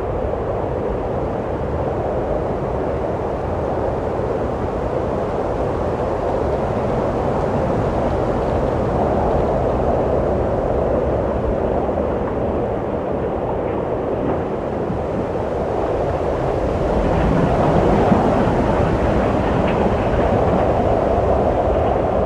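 Wind blowing steadily, a low rushing that swells slowly and rises to a stronger gust about seventeen seconds in.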